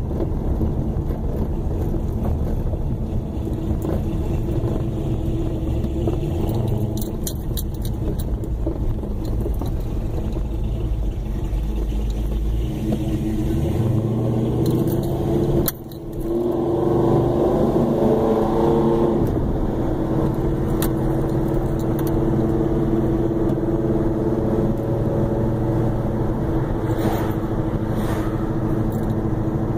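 Car engine and road noise heard from a moving car, steady for the most part. The sound dips briefly about halfway through, then an engine rises in pitch for a few seconds as it picks up speed, with a few light rattles now and then.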